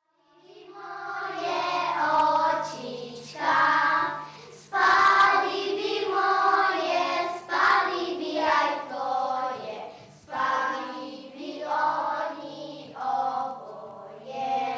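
A class of schoolchildren singing a song together, fading in at the start and going on in sustained phrases with short breaks between them.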